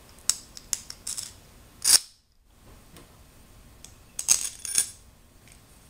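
Long M5 bolts clicking and clinking against a metal gantry plate and the tabletop as they are picked up and pushed through the plate's holes. A quick run of sharp clicks comes in the first two seconds, the loudest at the end of it, then a cluster of three more a couple of seconds later.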